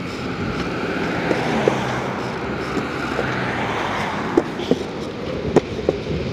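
Steady rush of road traffic, with a scattering of light, irregular taps.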